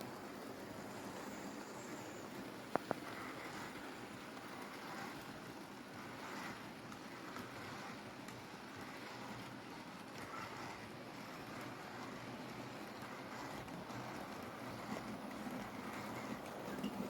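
OO gauge model train running on its track: a steady rumble of motor and wheels on the rails, with a sharp double click about three seconds in.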